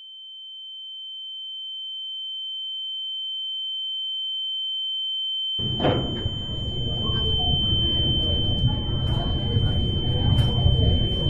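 A steady high-pitched electronic tone, a single pure whine that swells gradually louder. About five and a half seconds in, the noise of a busy school hallway comes in under it while the tone holds.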